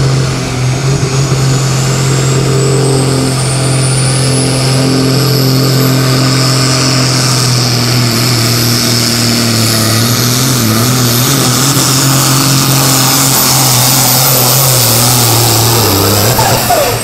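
Diesel engine of a Super Sport class pulling tractor running flat out under load as it drags the weight-transfer sled, with a high whine rising through the first half and then holding steady. About a second before the end the engine note drops as the tractor reaches a full pull and backs off.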